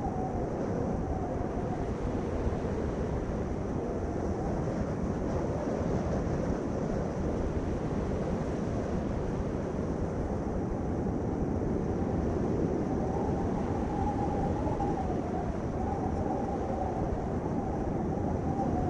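Steady rumbling noise with a faint wavering hum, growing a little stronger in the second half.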